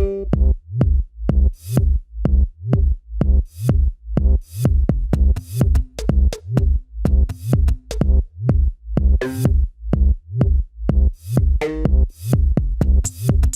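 Electronic background music with a steady drum-machine beat, about two kicks a second, with high ticks between them.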